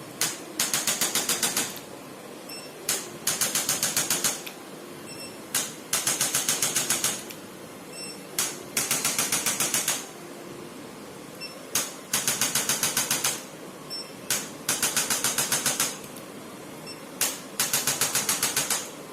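Chiropractic adjusting instrument firing in bursts of rapid clicks, about ten a second for about a second at a time. There are seven bursts roughly three seconds apart, each with a single click just before it.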